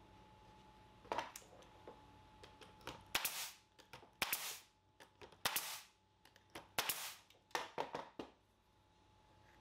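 Pneumatic brad nailer firing about seven or eight times, several seconds apart at first and then quicker near the end, each shot a sharp crack with a short hiss after the louder ones, driving brad nails into cedar fence-picket panels.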